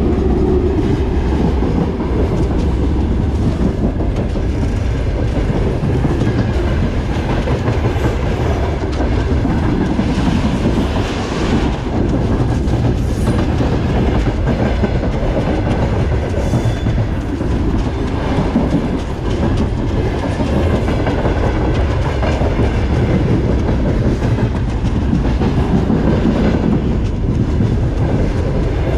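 Moving freight train heard from the end platform of a hopper wagon: a loud, steady rumble of steel wheels on the rails, with the clickety-clack of wheels over rail joints.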